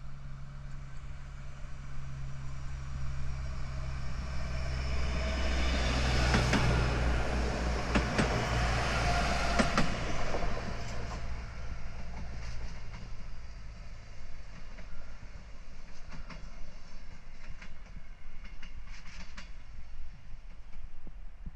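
SA133 diesel railbus passing close by: its engine hum swells as it approaches and peaks about six to ten seconds in, with the wheels clicking over the rail joints. It then fades as the railbus pulls away, with a few fainter wheel clicks later on.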